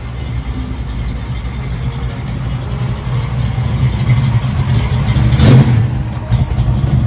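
Engines of classic cars driving slowly past, running with a deep, steady note that grows louder. The loudest is a late-1960s Ford Mustang fastback passing close and pulling away, peaking about five and a half seconds in.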